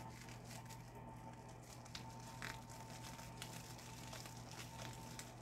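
Faint crinkling and a few small clicks of plastic packaging on a small cosmetic item being pulled and bitten open, over a steady faint hum.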